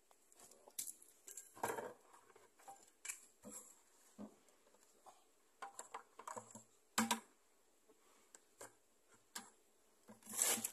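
Machete chopping and prying into a soft, rotten log, a string of irregular knocks and cracks of wood, the loudest about seven seconds in and near the end.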